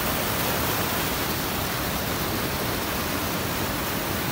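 Fast mountain stream and small waterfall rushing over rocks: a steady, even wash of white water.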